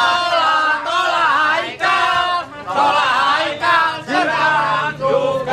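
A crowd of men chanting a marching song (mars) together, in loud sung phrases with short breaks between them.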